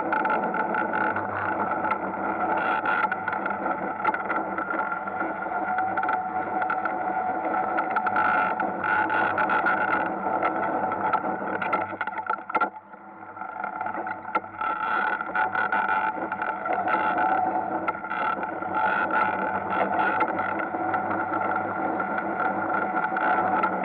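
Ice kart's motor running steadily, heard from on board. Its sound falls away briefly about halfway through, then picks up again.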